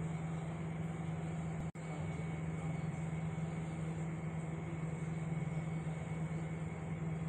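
Steady low hum and background noise of an indoor shopping mall, with no voices standing out. It drops out for an instant just under two seconds in.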